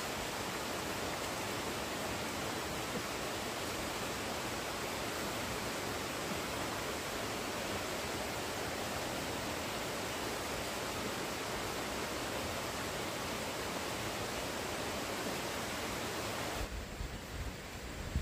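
A steady, even rushing hiss with no distinct events. Near the end it cuts off abruptly, and gusts of wind buffet the microphone.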